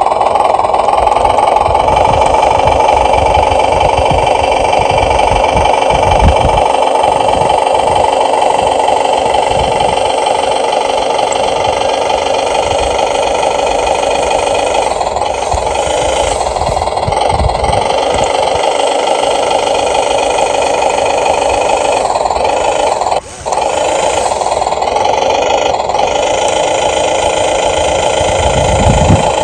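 Huina 1550 radio-controlled toy excavator running: a steady, loud mechanical buzz, with its motors whining up and down in pitch now and then as it works. The sound drops out briefly about 23 seconds in.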